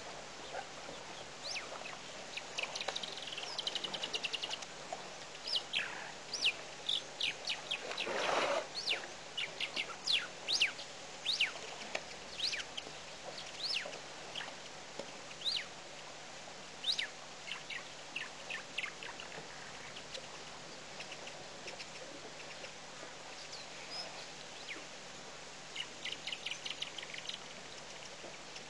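Wild birds calling: many short, sharp whistles that drop steeply in pitch, and now and then a rapid trill of ticking notes, over a faint steady hiss. About eight seconds in comes a brief rushing whoosh.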